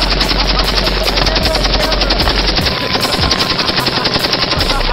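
Belt-fed machine gun firing a long continuous burst of rapid, evenly spaced shots.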